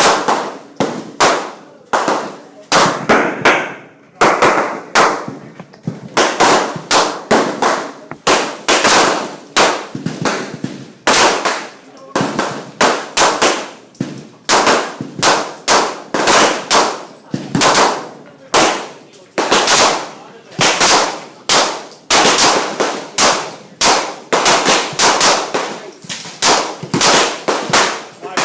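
Gunfire at a shooting range: shots going off irregularly, about one to two a second and sometimes in quick pairs, each with a short ringing echo.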